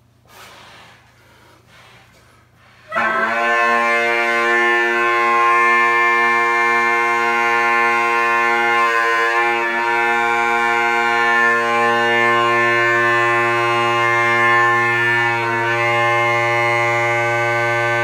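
3D-printed Great Highland bagpipe drones (tenor and bass, chanter corked) sounding a steady, unbroken drone. It strikes in about three seconds in, after quiet blowing to fill the bag. The low bass note swells stronger about two-thirds through as the bass is tuned against the tenor until the two sound as one tone.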